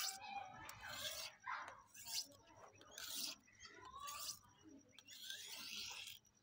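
A steel kitchen knife's edge scraped along the edge of a red sharpening stone in a series of short strokes, roughly one a second. The blade's old edge is being ground off (dulled) before it is resharpened.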